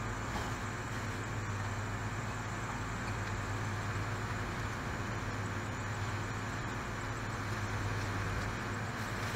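Steady low hum under an even hiss, unchanging throughout: the background noise of a running appliance in the room.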